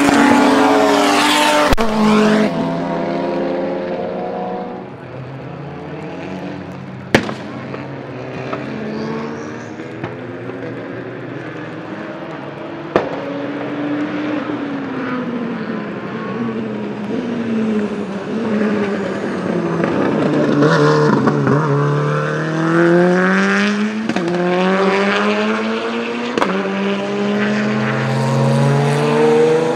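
Turbocharged four-cylinder time-attack race car engines at full throttle on track, pitch repeatedly climbing, breaking off and dropping through sequential gear changes as the cars pass and pull away. Loud at first, fainter through the middle, then louder again later on. Two sharp cracks, about 7 and 13 seconds in.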